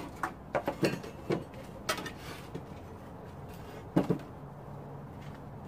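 Steel plate pieces knocking and clanking together as they are handled: a quick run of sharp metal clanks in the first two seconds, then a close pair of knocks about four seconds in.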